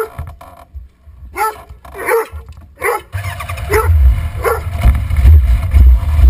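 Rhodesian ridgeback giving about six short barks and yips, spaced roughly half a second to a second apart. From about three seconds in a low, fluctuating rumble builds underneath and becomes the loudest sound.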